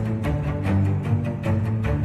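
Outro music with a steady beat over low, sustained bass notes.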